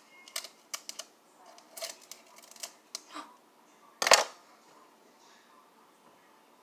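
Scattered light clicks and taps of small objects being handled, then one louder knock about four seconds in.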